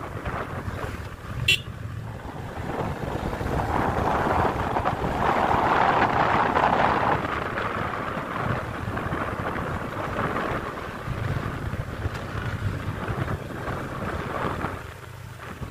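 Motorcycle running along the road with wind rushing over the microphone, swelling louder for a few seconds near the middle. A short sharp click about one and a half seconds in.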